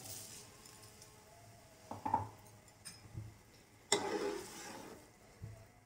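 Soaked rice poured from a bowl into hot stock in a metal pot, then a metal spoon stirring it, with a short scraping swirl about four seconds in.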